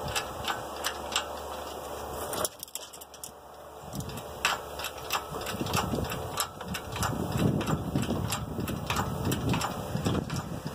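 Hand-pumped hydraulic engine hoist being jacked up. It clicks with each pump stroke, about two a second, with a short break about two and a half seconds in, as the hoist lifts an engine out of its bay.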